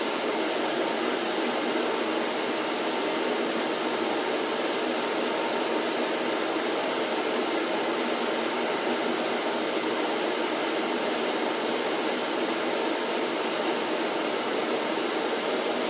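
Electric vacuum cleaner running steadily: an unchanging rush of air with a faint motor hum.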